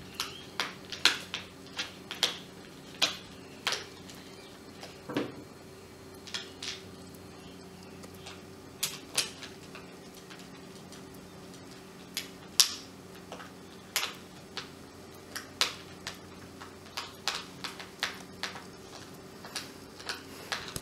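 Screwdriver driving screws into an Orpat HHB-157E hand blender's plastic body: irregular sharp clicks and taps of the tool against the screws and plastic, several times a second at the busiest moments, over a faint steady hum.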